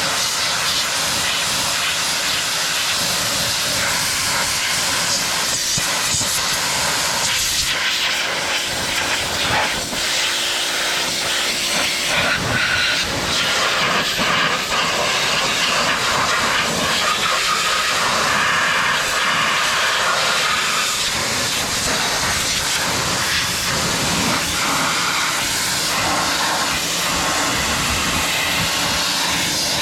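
Pressure washer spraying water: a loud, steady hiss.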